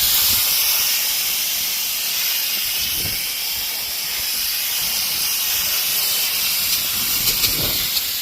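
Steady hiss of a sprayer spraying diluted coil-cleaning solution onto an air-conditioner condenser coil, with a few light clicks near the end.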